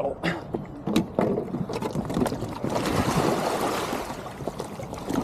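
Water splashing around an inflatable kayak as someone climbs into it from the bank, with a couple of sharp knocks in the first second and a surge of splashing about halfway through.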